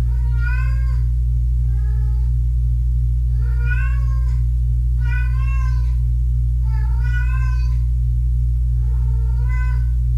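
Kitten meowing repeatedly, about six short calls roughly a second and a half apart, over a loud steady low hum.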